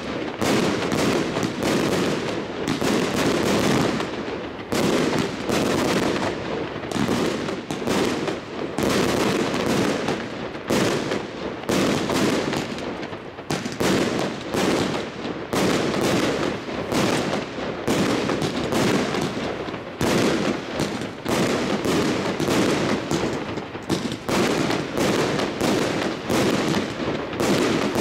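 Aerial fireworks bursting in a rapid, unbroken barrage: many bangs and crackles a second.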